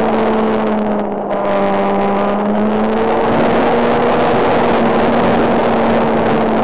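Engine of a radio-controlled model Spitfire running in flight, a steady droning buzz over a wide hiss. About a second in it eases off briefly, dropping slightly in pitch, then picks back up and holds steady.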